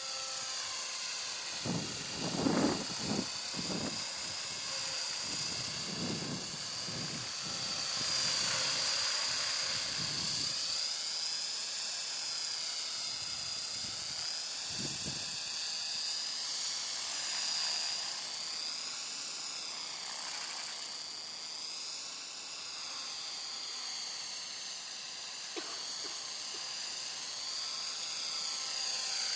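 Align T-Rex electric RC helicopter in flight: the high whine of its electric motor and drive with the whir of the rotor, rising and falling in pitch as the throttle and rotor load change. A few low thumps come in the first ten seconds.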